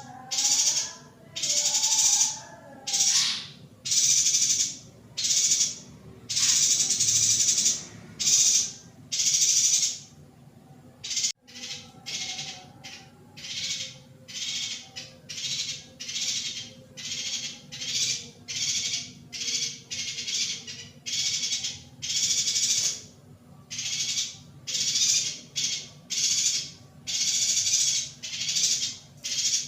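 Female yuhina calling over and over: harsh, high-pitched chattering calls about a second apart, with a brief break about 11 seconds in, after which the calls come shorter and quicker.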